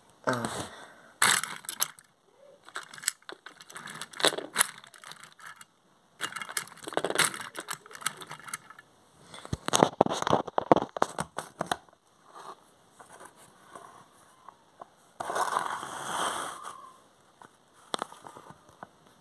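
Plastic toy trains and their hook couplings being handled: scattered clicks, knocks and short scrapes, with a longer rustling scrape about fifteen seconds in.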